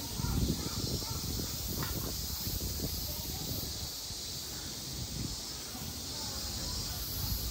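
Outdoor ambience: a steady high hiss with uneven low rumbling and faint, distant voices.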